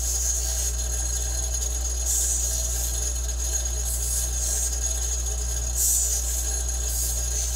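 Ryobi bench grinder running steadily with a Scotch-Brite wheel, its motor humming, while the edges of a small aluminum bracket are pressed against the wheel face in short passes about every two seconds, each pass a brief hiss. The passes are deburring the sheet-aluminum edges.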